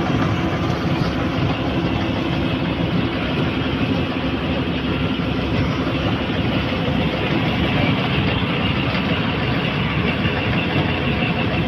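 A fishing boat's engine running steadily, at an even level throughout.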